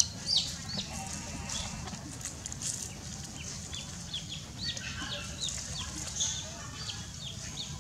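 Baby chick peeping over and over: short, high, falling cheeps, a couple of times a second.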